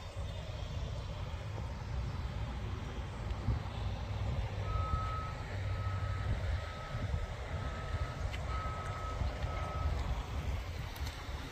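A vehicle's reversing alarm beeping six times, about one beep a second, over a steady low wind rumble on the microphone.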